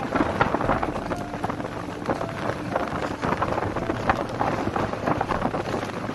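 Wind buffeting the microphone and water splashing along the hull of a small outrigger boat under way, a steady rushing noise full of short crackles.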